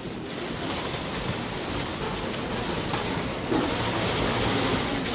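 Bank lobby ambience: a steady wash of room noise that grows louder about three and a half seconds in.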